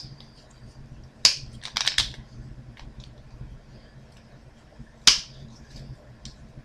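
Snips cutting through the plastic frame of a small computer cooling fan: sharp snaps, several a little over a second in and one loud snap about five seconds in.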